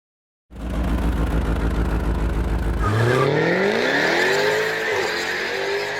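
Holden Commodore SS-V Redline's 6.2-litre V8 running with a low, even rumble, then about three seconds in accelerating, its pitch rising steadily, with a brief dip near the end.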